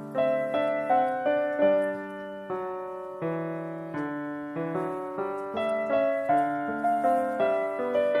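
Background piano music: a melody of struck notes, each starting sharply and fading.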